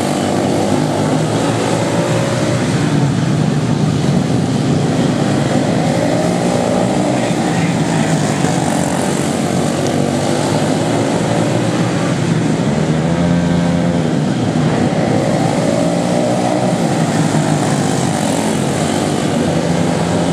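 Several quarter midget race cars with small Deco single-cylinder engines running hard together around a dirt oval, their pitch rising and falling as they pass, with one car's note sweeping past more plainly around the middle.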